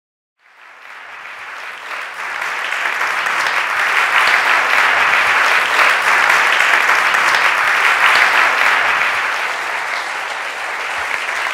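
Audience applauding, building up over the first few seconds and easing slightly near the end.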